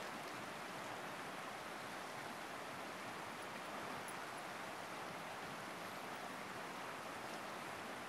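A wide river rushing through rapids: a steady, even wash of fast-flowing water.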